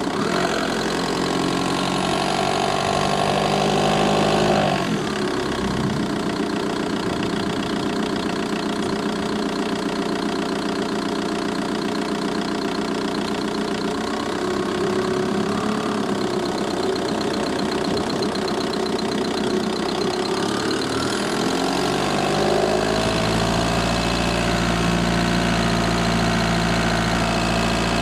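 VW Bora 1.9 TDI four-cylinder turbodiesel running with a ticking sound from the engine bay. The engine note shifts about five seconds in and again around 22 seconds.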